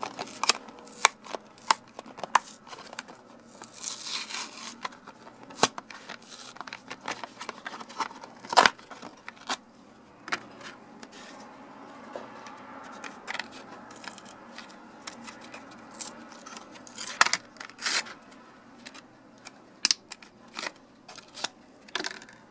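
A blister pack being torn open by hand: the cardboard backing tears and the plastic blister crinkles, with a string of sharp clicks and snaps and a loud snap partway through. The freed plastic box cutter is then handled.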